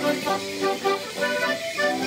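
Accordions playing a traditional English Morris dance tune, a quick run of short notes over a steady beat.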